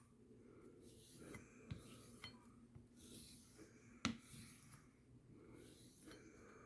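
Kitchen knife blade being stroked on a leather strop to take off the burr: faint rubbing strokes about every second, with one sharp click about four seconds in.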